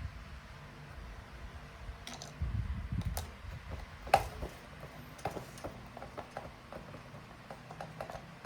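Light, irregular clicks and taps of small clock-movement parts being handled and fitted by hand, with a muffled handling rumble about two and a half seconds in and a sharper click about a second later.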